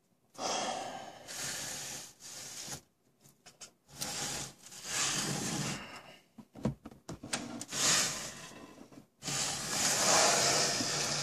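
Rubbing and scraping handling noise in three long bursts, with a few light clicks and knocks between them.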